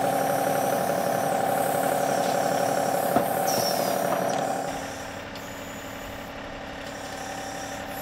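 John Deere tractor's diesel engine running steadily, with one sharp click about three seconds in; the engine sound drops noticeably just under five seconds in and carries on quieter.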